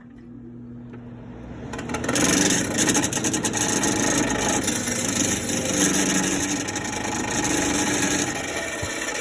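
1950s window air conditioner running, its fan and motor making a loud rattling, scraping noise that comes up about two seconds in after a faint hum.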